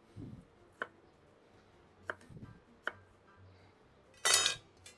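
Chef's knife cutting a tomato on a thick wooden chopping block: a few sharp knocks of the blade on the wood with a couple of softer thuds, then a louder scrape about four seconds in.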